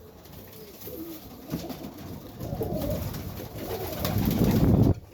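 Pigeons cooing. A louder close noise builds about four seconds in and cuts off suddenly just before the end.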